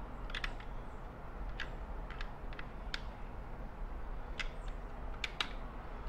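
Scattered small clicks of a screwdriver snugging the terminal screws on a Tesla Wall Connector's wiring block, about eight of them at uneven intervals. A steady low hum lies underneath.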